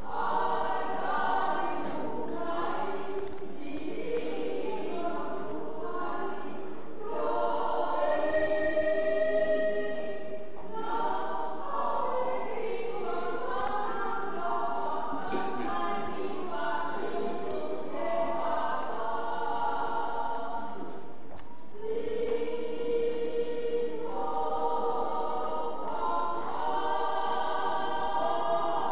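Several voices singing a song together, with long held notes and a steady level throughout.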